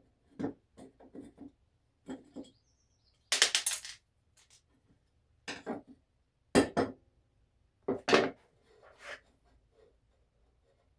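Metal hardware and tools being handled and set down on a work surface: irregular clinks and knocks, with a brief metallic rattle about three seconds in.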